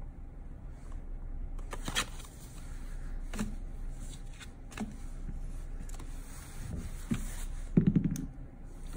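Cardboard guild-kit packaging being handled: scattered light taps, clicks and scrapes as it is opened, moved and set down on a cloth playmat, with a short creaky sound near the end.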